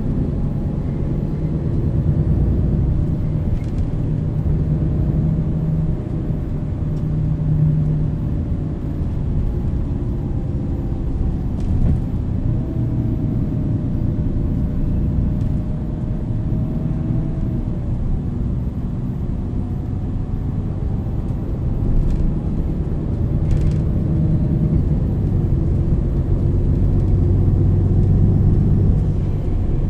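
MAN NL 323 city bus's diesel engine and ZF Ecolife automatic gearbox running as the bus drives along, a steady low rumble with a whine that slowly rises and falls in pitch as it speeds up and eases off.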